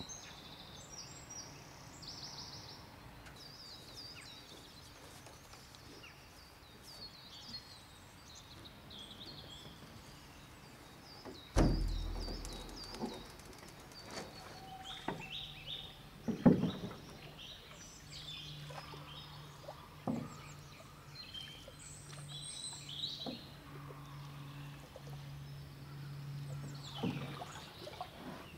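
Birds chirping and singing throughout, with a heavy thump about twelve seconds in and a sharp knock a few seconds later, plus smaller knocks, as a canoe hull is lifted and handled on the ground. A steady low hum runs through the second half.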